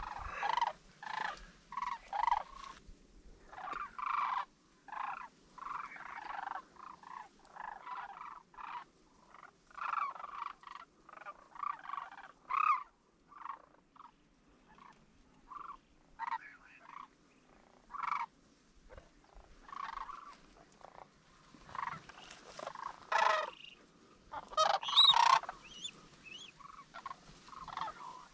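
Sandhill cranes calling: rolling, rattling calls, one after another, loudest about three quarters of the way through.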